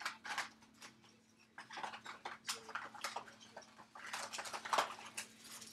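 Trading-card packaging being torn open and handled: paper and foil wrappers crinkling and rustling in irregular bursts.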